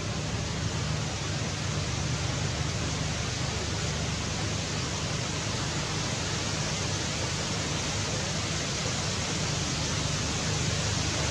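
Steady outdoor background hiss with a low rumble underneath, unchanging throughout, with no distinct calls or knocks standing out.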